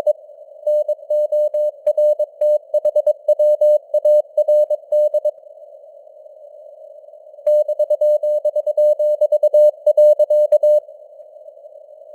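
Morse code (CW) sent at 22 words per minute as a single mid-pitched tone keyed on and off in dots and dashes, over a steady hiss of simulated radio band noise. The keying pauses about five seconds in, leaving only the hiss for about two seconds, resumes, and stops again about a second before the end.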